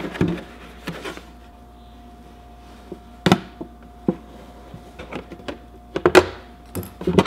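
Razor blade cutting a hole in the side of a plastic milk jug, with scattered crackles and clicks of the thin plastic flexing in the hand. Two louder knocks stand out about three and six seconds in.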